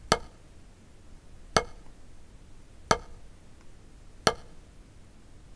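One drumstick striking a practice pad four times at a slow, even pace, about a second and a half apart, each a short sharp tap. These are full strokes: the stick is dropped from high and let rebound back up.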